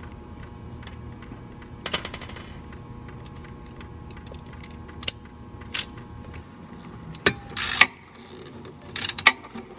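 Hand ratchet clicking in short runs, with metal clinks of the socket and fittings, as the brake line's banjo bolt with its crush washers is snugged down onto the caliper.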